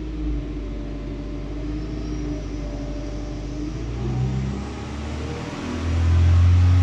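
BMW M5 engine running at full load against a water-brake dyno during a controlled RPM sweep, its pitch climbing steadily as revs rise, and getting noticeably louder about six seconds in.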